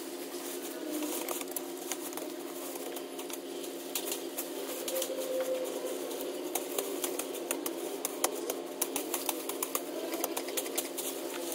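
Dense, irregular crackling and snapping of leaves, fern fronds and twigs as brush is pulled out and trampled by hand, over a steady low hum.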